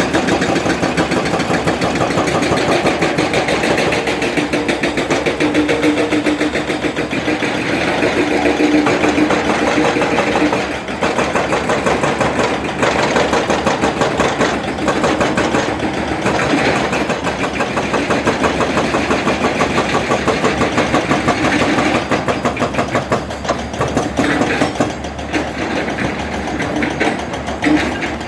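Excavator-mounted JCB hydraulic hammer breaking rock: a rapid, steady run of blows, with the excavator's engine running under it. The hammering pauses briefly a little before the middle.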